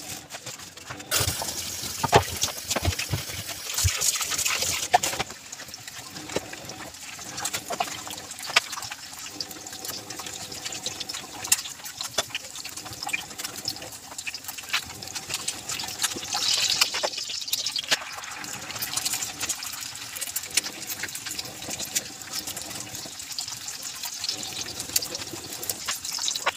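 Kitchen tap water running into a sink while dishes are washed by hand, with scattered clinks and knocks of crockery and utensils. The water is louder for a few seconds near the start and again about two-thirds of the way through.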